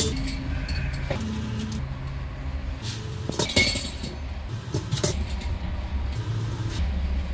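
A vehicle engine running at low revs, with light metallic clinks and a louder clatter about three and a half seconds in.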